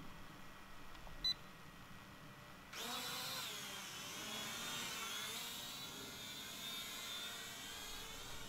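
Cheap toy quadcopter drone's small motors and propellers whining, starting suddenly about three seconds in and wavering in pitch as the throttle changes in flight. A short electronic beep about a second in.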